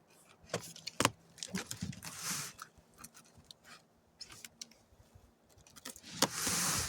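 A large cardboard shipping box being opened by hand: scattered knocks and crinkles as it is handled, a short rasp about two seconds in, and a longer, louder rasp of cardboard or tape tearing near the end.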